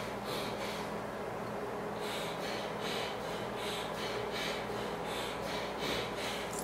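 Quick breathing through the nose, one nostril held closed by the fingers in alternate-nostril breathing, short hissing breaths about two a second with a brief pause early on.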